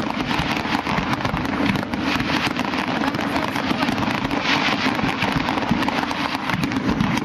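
Aerial fireworks display going off in a dense, rapid barrage: many shell bursts and crackles overlapping with no break.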